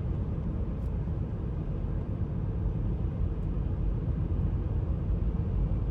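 Steady low rumble of a moving vehicle, even throughout, with no distinct events.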